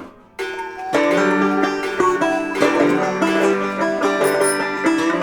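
Background music: an instrumental tune of plucked string notes, starting just after a brief pause.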